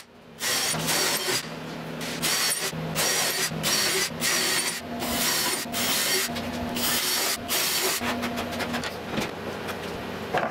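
Cordless drill boring holes through a metal rail into the wooden table top beneath, its motor running in repeated bursts with short pauses between.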